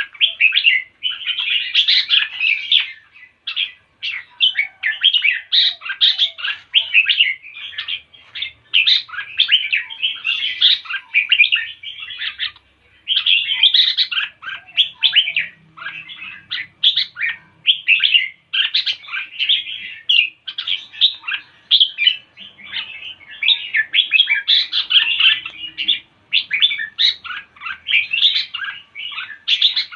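A bird singing: rapid chirping phrases, nearly continuous, with a few short breaks between bouts.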